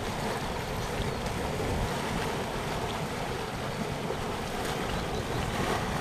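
Warm spring water welling up out of the ground and churning into a pool: a steady rushing of water.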